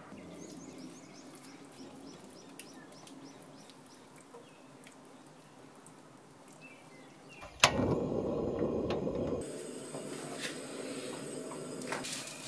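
Spatula stirring a thick cream sauce in a steel pan, soft and quiet, with faint bird chirps. About seven and a half seconds in, a sharp click opens a louder rushing noise that lasts about two seconds and cuts off suddenly.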